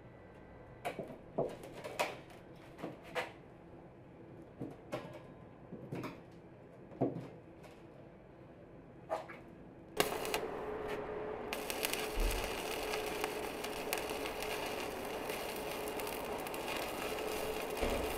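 A dozen or so light metal knocks and clicks as a steel frame with wheel rims is handled, then about ten seconds in, the steady crackle and hiss of electric arc welding from a small inverter welder, with a faint steady hum underneath.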